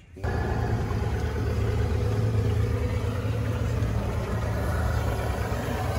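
A motorboat engine running steadily, cutting in abruptly a fraction of a second in: the other boater's boat towing the raft, whose own outboard has died.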